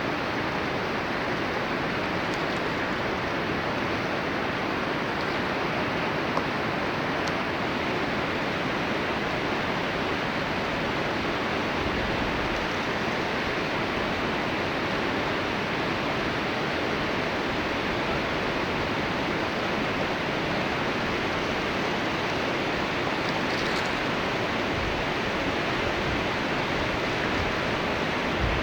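Steady, even rush of storm water, rain and runoff flowing in channels, with no change in level.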